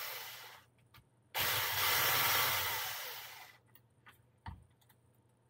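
Parkside cordless drill spinning a long hex bit to back screws out of an RC car's rear bumper: a run that stops about half a second in, then a second run of about two seconds that tapers off as it ends. A faint click follows near the end.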